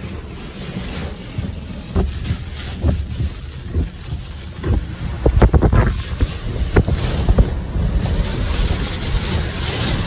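Extreme rear-flank downdraft winds buffeting and shaking a car, heard from inside as a low, gusting rush of wind noise, which the chaser puts at 60 mph plus. Sharp knocks and thumps on the car come through the wind from about two seconds in, thickest around the middle.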